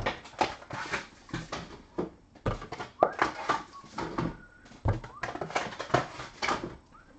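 Foil trading-card packs crinkling and rustling as they are handled, in irregular short crackles.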